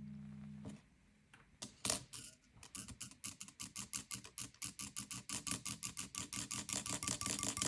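Typing on an Epomaker Mini Cat64 mechanical keyboard with linear switches: a few separate keystrokes about a second and a half in, then steady fast typing, roughly eight keystrokes a second.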